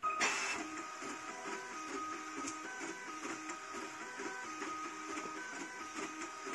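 The stepper motors of a home-built CoreXY 3D printer drive the toolhead at very high speed and acceleration (up to 1000 mm/s, 40,000 mm/s²), giving a motor whine whose pitch jumps between notes several times a second as the head changes speed and direction. It sits over a steady hiss and starts abruptly with a short burst of noise.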